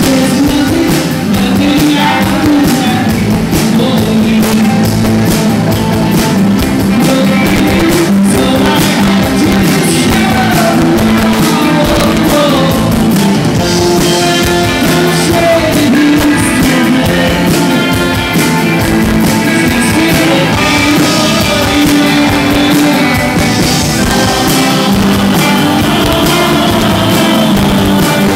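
Live rock band playing loudly: a male lead singer, joined by a female singer, over electric guitars and a drum kit.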